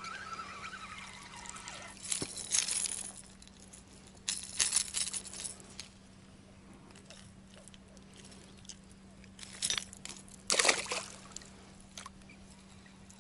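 Water splashing and sloshing in several short bursts, the loudest about ten seconds in, as a hooked perch thrashes at the surface beside an inflatable boat.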